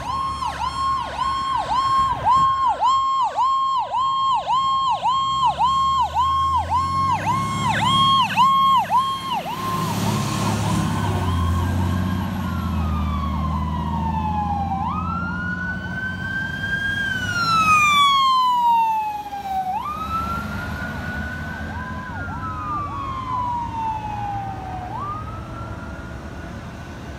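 Federal Signal PowerCall electronic sirens on a fire engine and medic unit: a fast warble for the first nine seconds or so, then a slow wail rising and falling, with two sirens overlapping. A diesel engine rumbles under the siren around ten seconds in as the apparatus moves off.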